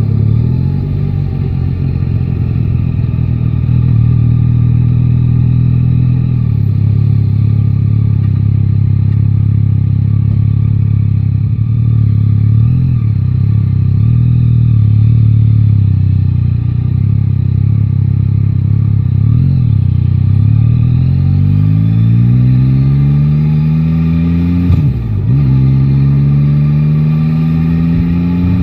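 Yamaha Tracer 9 GT's 890 cc inline-three engine running under way at a steady pitch, then accelerating with a rising pitch about two-thirds of the way in, a brief dip at a gear change, and rising again.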